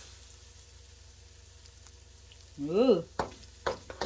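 Faint steady sizzle of food frying in a pan. About three seconds in there is one short voiced sound from a person, followed by a few light clicks near the end.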